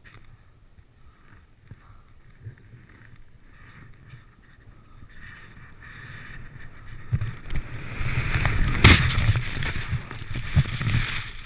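Snowboard riding down through deep powder: the board's rushing hiss through the snow, with wind on the microphone, builds from quiet to loud about halfway in. There is one sharp knock near the loudest part.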